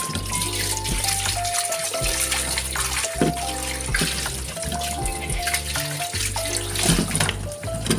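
Kitchen tap running and splashing onto metal pots being rinsed in a stainless steel sink, with a few light knocks of metal, under background music with a simple stepping melody.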